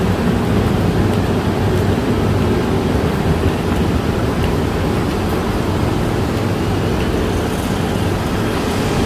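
A large engine running steadily, a continuous loud low rumble that cuts off abruptly near the end.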